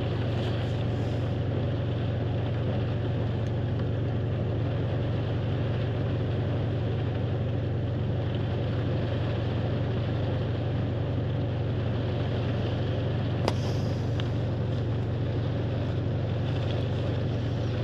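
A Ford Mustang's engine running steadily, heard from inside the cabin as an even low drone, with a single short click about three-quarters of the way through.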